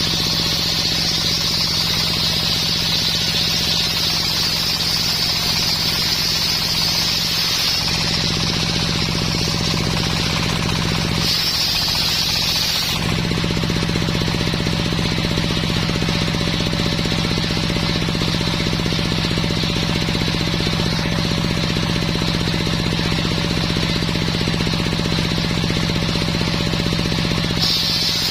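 Homemade circular-saw sawmill running steadily on coconut-palm wood, its drive engine a continuous low hum. A high-pitched whine from the saw is present for the first several seconds, returns briefly about halfway through, and comes back near the end.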